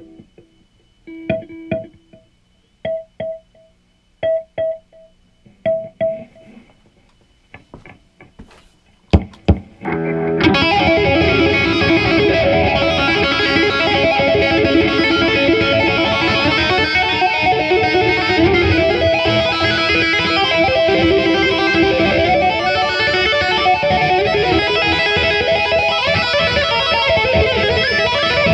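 Washburn electric guitar through a high-gain EVH 5150 III LBX-S amp with an Echoplex delay in the effects loop: a few single notes picked with gaps between them, each ringing and dying away, then about ten seconds in a loud distorted lead with delay that keeps going.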